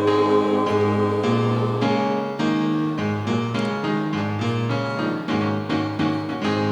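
Keyboard accompaniment playing an instrumental interlude of a slow pop ballad, sustained chords and a melody line with no singing, between the choir's verses.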